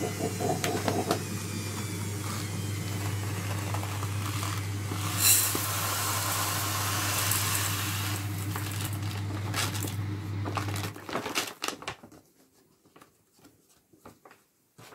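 Dry round-grain rice pouring from a plastic packet into a metal pot: a steady hiss of falling grains over a low hum, stopping about eleven seconds in. A few faint rustles of the packet follow.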